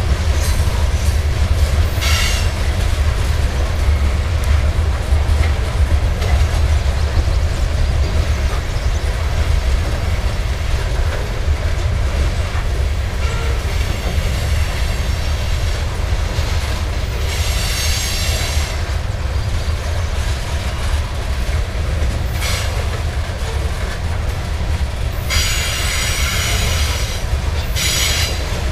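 Loaded grain train's covered hopper cars rolling past with a steady low rumble of wheels on rail. Bouts of high metallic wheel squeal come and go, the longest near the end.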